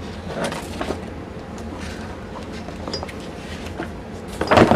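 Paper pages in a three-ring binder being handled and turned: a few short rustles and taps, then a louder knock near the end.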